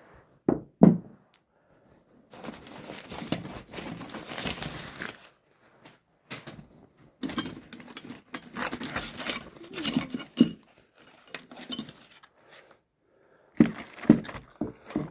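Hand tools being handled: a couple of knocks as metal tools are set down, then two longer stretches of rustling and clinking as tools are rummaged through, and a few more knocks near the end.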